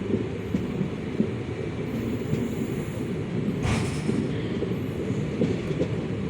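Passenger train coach running slowly on the track: a steady low rumble of wheels and carriage, with one sharp clank about two-thirds of the way through.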